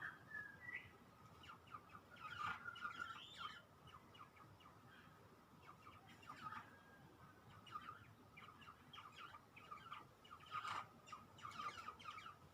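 Faint thin calls and short chirps from grey shrike-thrush nestlings, a held high note running under them. Bursts of soft rustling come about two, six and eleven seconds in.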